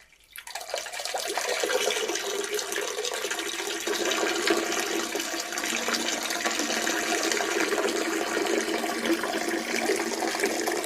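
A person urinating into a toilet bowl: a steady stream splashing into the water that starts about half a second in and keeps up evenly.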